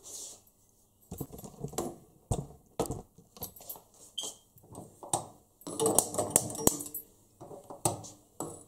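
Sharp, irregular clicks of a hand-held gas lighter and the stove's gas burners being lit, mixed with knocks from clay pots being handled on the stove.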